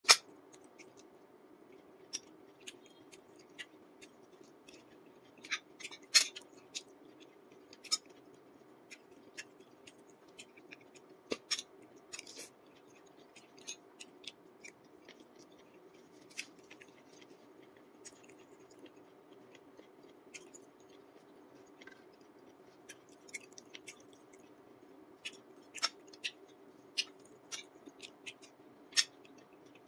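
Close-up eating sounds of a person chewing: irregular wet mouth clicks and smacks, a few sharper than the rest, over a steady faint hum.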